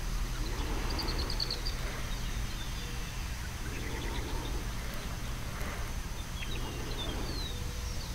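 Small birds chirping briefly a few times, with a quick run of chirps about a second in and a falling call near the end, over a low steady rumble.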